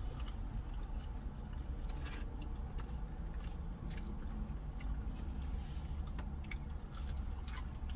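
Close-up chewing of fries dipped in honey mustard: soft wet mouth clicks and smacks scattered through, over a low steady hum in a car cabin.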